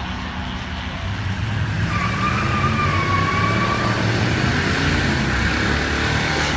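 V8 drag-race engines, a small-block Chevy in a Buick wagon and a 4.8 LS in a Monte Carlo, running hard down the drag strip as a steady loud drone. A thin higher tone sounds over it from about two to four seconds in.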